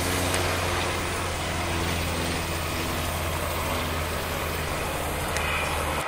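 Steady low engine drone with an even hum, cutting off abruptly at the end.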